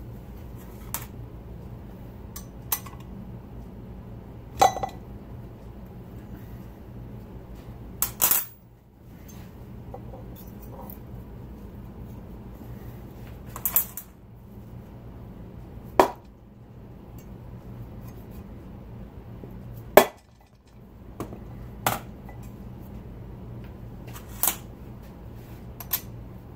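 Irregular sharp taps and metallic clinks, about ten in all, some with a short ring, from hand tools and a feeler gauge against the aluminium case and end plates of a 6-71 Detroit Diesel blower while the rotor-to-case clearance is being set. A steady low hum runs underneath.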